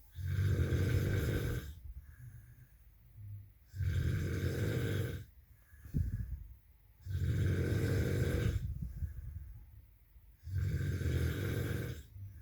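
A sleeping person snoring heavily, with four long snores about three seconds apart, a short snort between the second and third, and quieter breathing in between.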